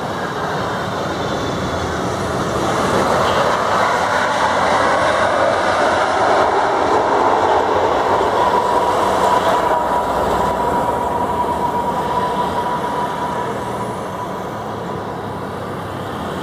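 Boeing 777-300ER's GE90 jet engines and rolling noise during the landing rollout just after touchdown: a loud rushing noise that swells over the first few seconds and eases off near the end. A steady whine sounds through the middle.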